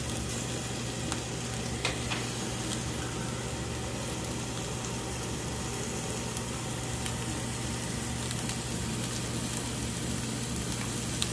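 Diced beef sirloin frying in oil in a nonstick pan, a steady sizzle with a few sharp ticks scattered through it. A steady low hum runs underneath.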